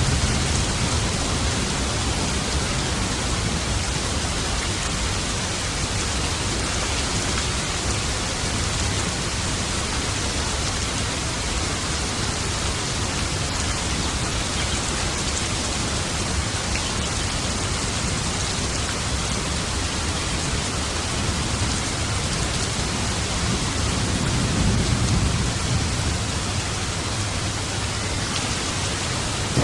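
Steady heavy rain falling, an even hiss of drops. About three-quarters of the way through, a low rumble of thunder swells up and fades.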